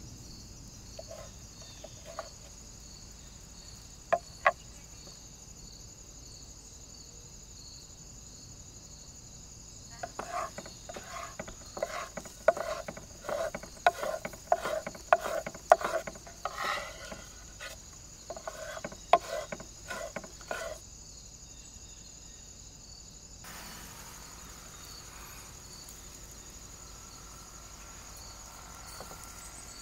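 A knife slicing roasted peppers into strips on a wooden cutting board: a run of quick taps of the blade against the board for about ten seconds in the middle, with two single clicks earlier on. Insects chirp steadily and high-pitched throughout.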